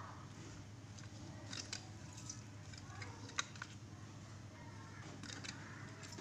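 A few faint wooden clicks and taps as lemon halves are squeezed with a wooden hand press, over a steady low hum.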